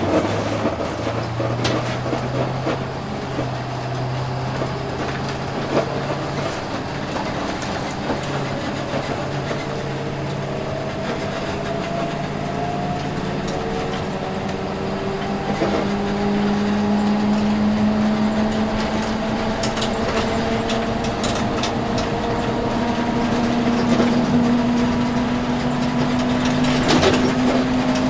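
Empty school bus heard from inside the cabin as it drives along, the engine note climbing, falling back once about halfway through and climbing again. The body and fittings rattle and click throughout.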